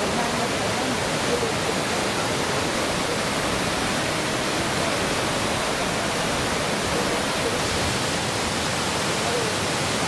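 Kuang Si main waterfall, a 60 m tiered cascade, with water pouring down the terraces in a steady, even rush.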